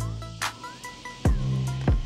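Background music with a beat: deep kick drum hits over bass notes, with sharp percussion strokes.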